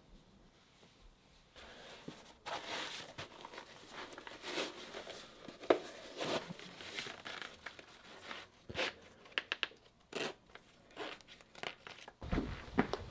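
Rustling and scuffing of red Salomon trail-running shoes being pulled onto the feet and tugged into place, in quick irregular strokes, with a dull thump near the end as a foot steps down.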